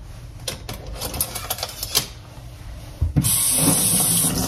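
A few light clicks and taps in the first two seconds, then about a second of steady hissing rustle near the end as a paper towel is pulled off its roll and torn off.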